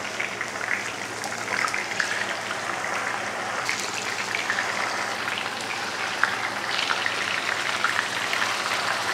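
Chicken-mince patties shallow-frying in hot oil in a non-stick pan: a steady crackling sizzle, with light scrapes and knocks of a spatula and fork as the patties are turned over.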